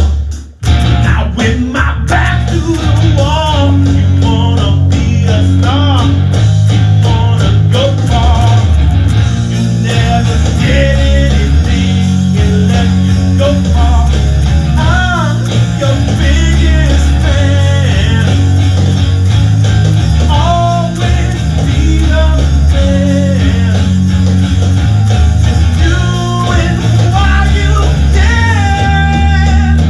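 Rock band playing live: a Stratocaster-style electric guitar over bass and drums. The music drops out for a moment just after the start, then the full band comes back in and plays on steadily.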